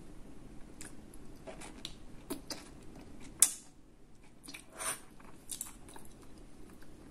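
Close-up mouth sounds of a person chewing soft vegetable pasta, with scattered wet smacks and clicks. One sharp click about three and a half seconds in is the loudest sound, and a brief louder smack follows just under five seconds in.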